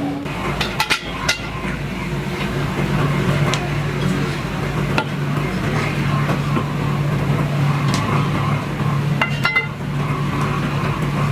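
Workshop machinery running with a steady hum, with a few sharp metallic knocks and clinks about a second in and again near the end.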